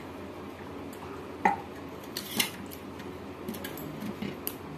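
Stainless steel plate clinking and knocking as it is handled and wiped clean by hand, with a few sharp metallic knocks; the loudest, about one and a half seconds in, rings briefly.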